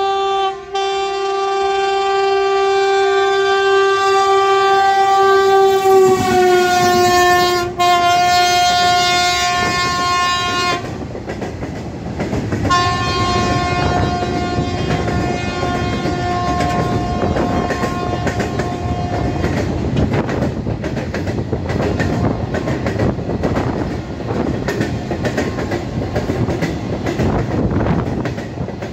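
WAG-9 electric locomotive sounding one long horn blast as it approaches and passes, the pitch dropping about six seconds in. A second, shorter blast follows. Then the gondola and flat wagons of the freight train roll past with a steady clatter of wheels over rail joints.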